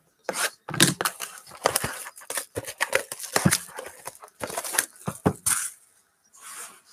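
Plastic shrink wrap being torn and crinkled off a sealed 2018-19 Panini Certified basketball card box, a run of crackles and rustles lasting about five seconds, then a softer rustle near the end as the box is set down.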